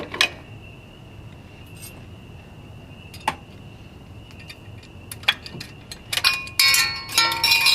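Loose metal objects being handled: a few separate clicks, then about a second and a half of busy metallic jangling and clinking near the end. A faint steady high-pitched whine runs underneath.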